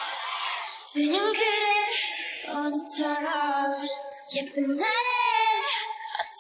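Female K-pop vocals sung live into headset microphones with the instrumental backing track removed, so the voices sound bare and unaccompanied. Long notes are held with vibrato, about a second in and again near the end.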